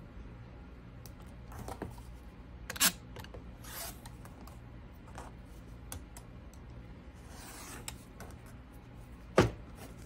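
Rotary cutter run along an acrylic ruler on a cutting mat, trimming half-square triangle pieces: short scraping cutting strokes, with a few sharp clicks and knocks from the ruler and cutter, the loudest near the end.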